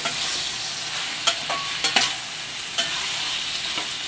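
Drumstick and potato pieces in masala sizzling as they are sautéed in a stainless steel kadai, with a steel spatula scraping and clicking against the pan several times as it stirs.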